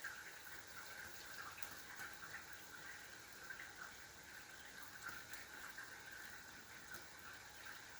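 Faint light rain falling during a thunderstorm, with scattered drops ticking.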